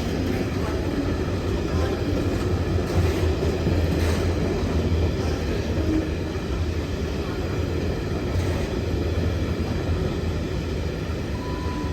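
A train passing, with a steady low rumble.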